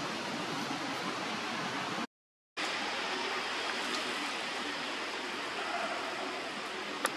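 Steady rush of flowing water, an even hiss with no distinct events, broken by a half-second gap of silence about two seconds in. A sharp click just before the end.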